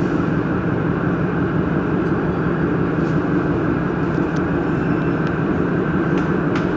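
Steady mechanical drone of machinery running, with a few faint clicks.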